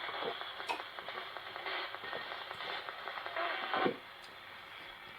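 Spirit box sweeping through radio stations: a steady hiss of static broken by brief fragments of broadcast sound. It cuts off about four seconds in.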